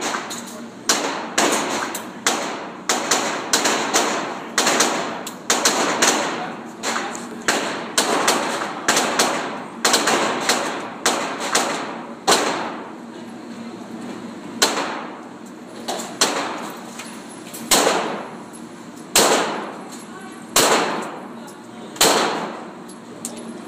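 Handgun shots: a fast string of closely spaced shots, about two a second, through the first half, then single shots about every second and a half, each with a short echo.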